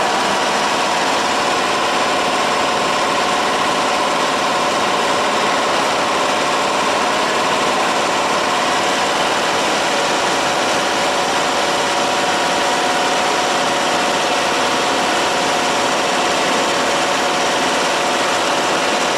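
Corn flour packaging machine running with a steady mechanical hum and a few constant whining tones.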